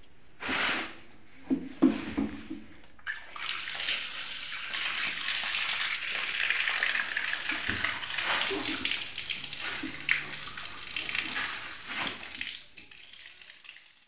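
Tap water pouring onto a slab of freezer frost on a concrete floor, a steady splashing hiss that starts about three seconds in and fades away near the end. A few short knocks come before it, as the ice block is handled.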